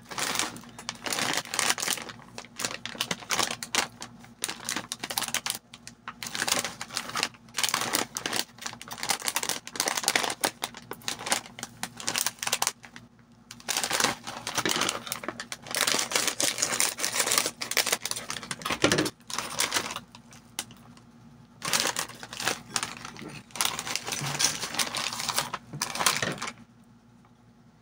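Metallized plastic corn-chip bag crinkling and crackling in bursts as hands handle it, open it and tip the chips into a ceramic bowl. It stops just before the end.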